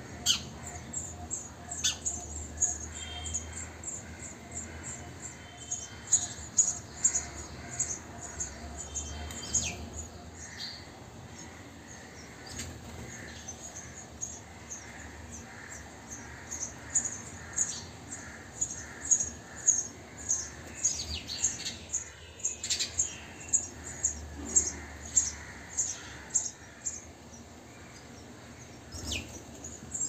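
House sparrow nestlings begging at the nest box: long runs of high, thin cheeping, several notes a second, while a parent feeds them. Lower adult chirps and a few short sharp sounds like wing flutters are mixed in.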